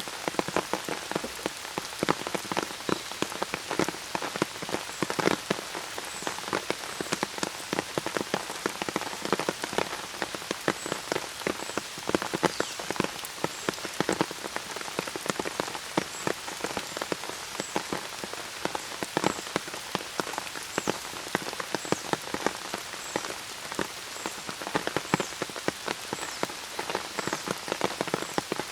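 Steady rain, with many sharp, close drips pattering irregularly over a continuous hiss of falling rain.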